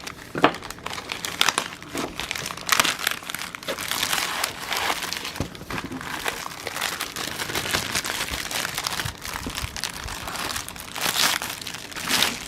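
Packaging of a paint-by-numbers kit crinkling and rustling unevenly as it is handled and opened, with a few sharp clicks among the crinkles.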